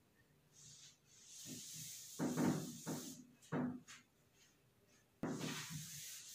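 Cloth duster wiping chalk off a blackboard: a faint rubbing hiss that comes in stretches as the cloth sweeps across the board, with a few heavier strokes around the middle.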